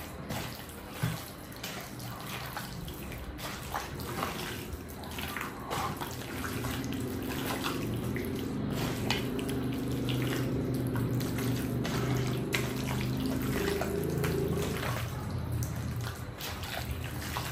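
Water running from a tap into a sink, getting somewhat louder in the middle stretch, with scattered small clicks and knocks of things being handled.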